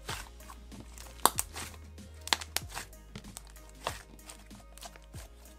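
Butter slime, glue slime mixed with soft clay, squeezed and kneaded by hand, giving a string of sharp pops and crackles as air is pressed out, over background music.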